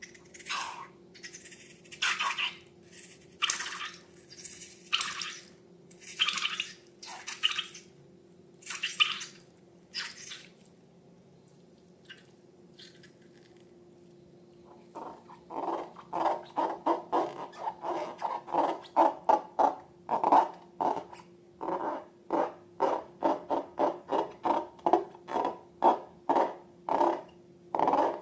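Slime being worked by hand, making wet squishing sounds: about a dozen separate hissy squishes in the first ten seconds, then after a pause a fast run of lower, sticky squelches, about two to three a second.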